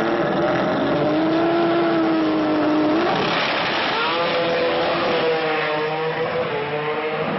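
Three-rotor 20B rotary engine of a Mazda 6 drag car held at steady revs on the start line, then launching about three seconds in. The engine rises in pitch in steps as the car pulls away down the strip.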